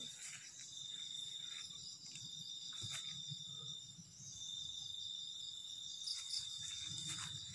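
Crickets trilling in the night: one steady high trill that breaks off briefly twice, over a fainter, higher insect buzz. A faint low rustle and a single click about three seconds in come from close by.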